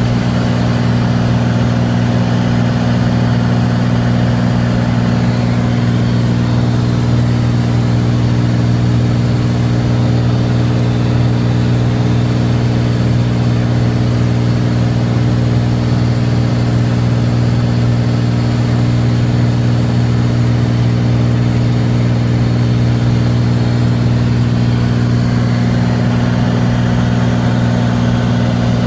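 Light single-engine propeller plane's engine and propeller droning steadily in cruise flight, heard from inside the cabin; the pitch and level hold constant throughout.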